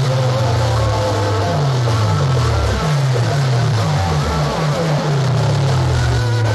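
Heavy DJ bass played very loud through a stacked horn-loudspeaker sound system: runs of quick falling bass sweeps alternating with held low bass notes.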